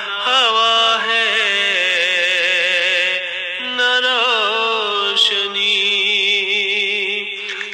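A solo voice chanting a slow, mournful melody with long gliding, ornamented notes over a steady low drone, in the style of a noha lament.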